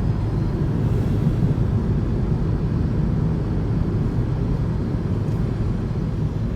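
Car driving on the road: a steady low rumble of engine and tyres.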